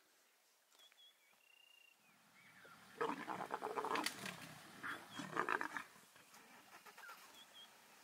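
Leopard growling in two loud, rough bouts, about three and five seconds in. Birds chirp faintly.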